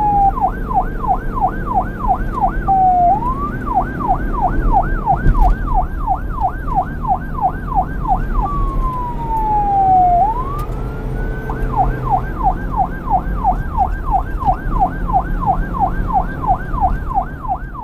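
Police car's electronic siren on a fast yelp, sweeping up and down about three times a second. The yelp is broken twice by a slower falling wail that rises back into it. Underneath runs a low, steady rumble.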